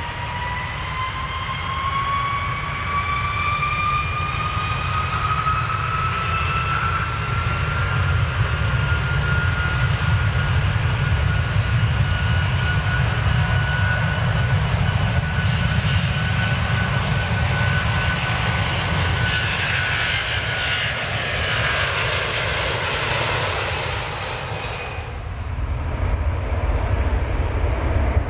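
Airplane jet engines spooling up for takeoff: a whine that rises in pitch and then holds steady over a building roar. Near the end the high part of the roar drops away suddenly, leaving a low rumble.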